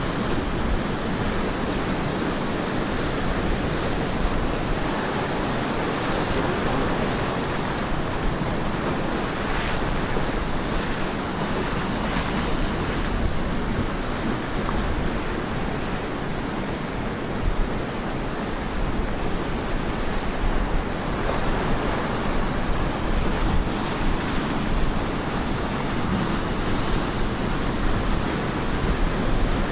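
Ocean waves breaking and washing on a beach, a steady rushing surf with gentle swells in loudness, with some wind on the microphone.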